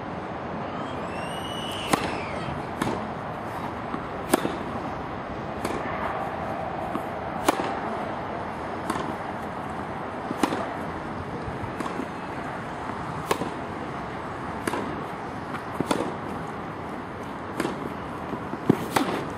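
A tennis rally: the ball struck by rackets back and forth, sharp pops about every one and a half seconds, some louder and some fainter, over a steady background hiss.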